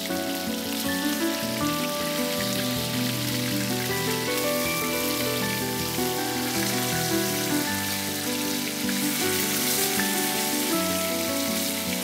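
Beef steaks sizzling in oil and butter in a frying pan, a steady dense crackling hiss, with soft background music underneath.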